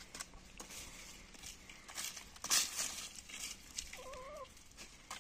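Lohmann Brown hens foraging under leaves, with scattered rustling and pecking clicks in the soil and foliage. About four seconds in, one hen gives a single short, wavering call.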